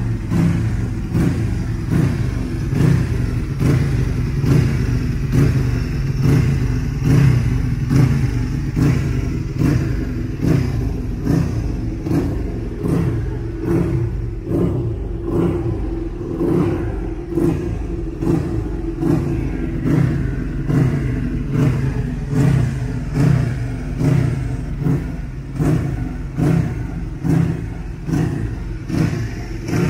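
Ducati Panigale V4 R superbike's V4 engine running on its paddock stands while it is warmed up, the throttle blipped over and over so the revs rise and fall about once a second.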